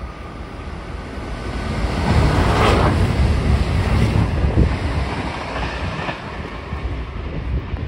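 DSB IC4 (class MG) diesel trainset passing beneath the footbridge. The rumble and rail noise swell to a peak about two to three seconds in, then ease off.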